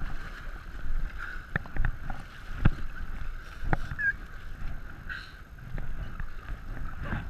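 Double-bladed paddle strokes splashing beside an inflatable kayak, with water sloshing over the tubes and wind buffeting the microphone. A few sharp slaps stand out in the first half.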